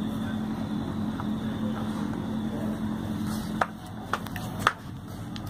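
Steady background rumble that drops a little after about three and a half seconds, with a few sharp clicks in the second half.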